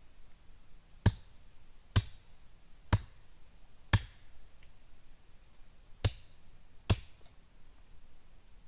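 Wooden stake being pounded into the ground: four sharp blows about a second apart, a short pause, then two more.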